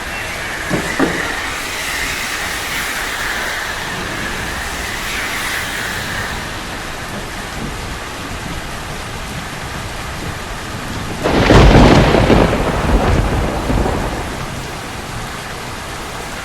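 Steady rain falling on a city street. About eleven seconds in, a sudden loud thunderclap breaks out and rumbles on for about three seconds before fading back into the rain.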